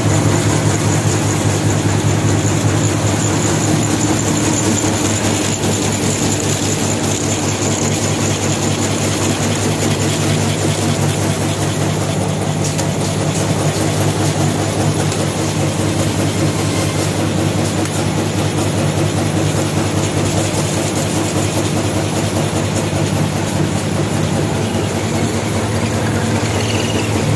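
High-speed paper straw wrapping machinery running: a steady mechanical hum with a fast, continuous rattle, and a faint high whine that fades out in the first third.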